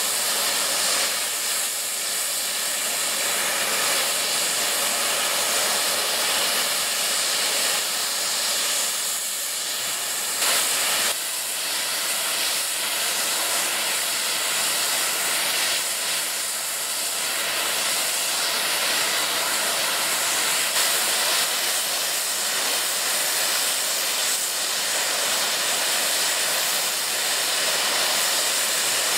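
Steady hiss of steam escaping from the standing Peppercorn A1 Pacific steam locomotive 60163 Tornado, with a brief louder surge about ten seconds in.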